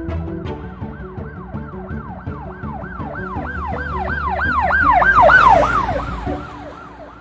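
Emergency vehicle siren in a fast yelp, about three rising-and-falling sweeps a second. It grows louder, then drops in pitch and fades as the vehicle passes. Background music plays under it and stops about six seconds in.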